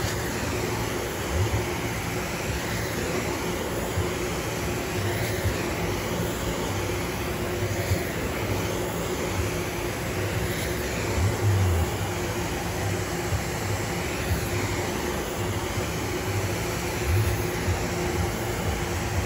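Carpet-cleaning extraction wand spraying and vacuuming commercial carpet: the extractor's suction runs with a steady roar and hum, its hiss swelling and falling every couple of seconds as the wand is stroked back and forth, with occasional low thumps.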